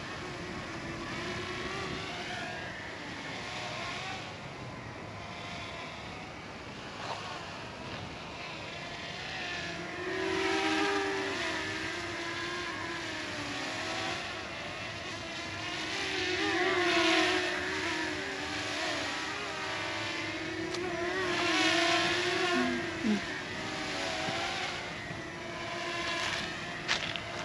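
DJI Mini 2 quadcopter's propellers buzzing in fast sport-mode flight, the pitch wavering as it manoeuvres. The buzz swells loudly three times, about ten, seventeen and twenty-two seconds in, as the drone passes close.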